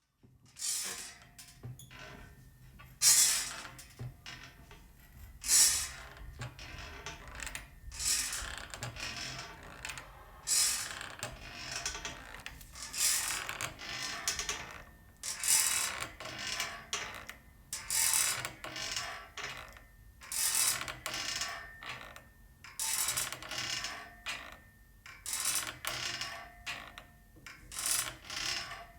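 A swing creaking and rattling on its metal fittings as it sways back and forth. The loudest creak comes about every two and a half seconds, with a weaker one between each pair.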